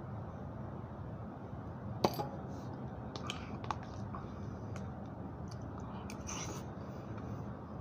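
Eating at a table: a sharp knock about two seconds in, then light clicks of a utensil against a plastic bowl and some chewing, over a steady low hum.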